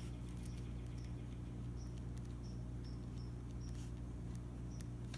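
Pen writing on paper: a string of short, faint, high squeaks and small ticks as the word is written, irregularly spaced, over a steady low hum.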